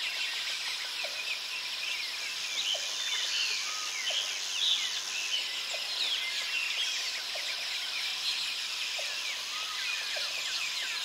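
Forest ambience: many birds chirping in short, falling notes over a steady high insect hum, with a short low call repeating roughly once a second.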